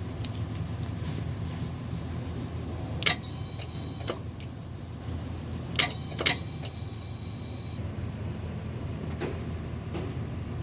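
Sharp metallic clinks, three of them about 3 and 6 seconds in, each ringing briefly, from hand work on the air compressor's fittings, over a steady low machine hum.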